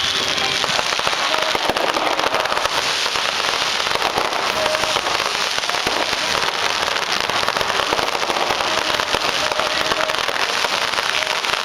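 Fireworks crackling: a steady, dense rattle of many small pops and crackles from sparkling fountains and low bursts, with no single big bang standing out.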